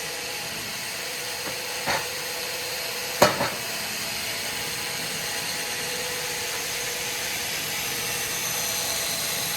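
Sawmill machinery running with a steady hiss and hum. There is a short knock about two seconds in and a louder double knock a little after three seconds.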